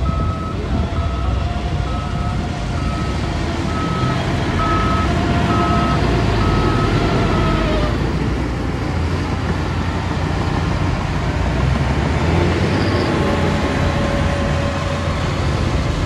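Dump truck's reversing beeper sounding about once a second over the steady running of heavy diesel engines from the truck and a SHANTUI crawler bulldozer pushing dirt. The beeping stops about eight seconds in while the engines run on.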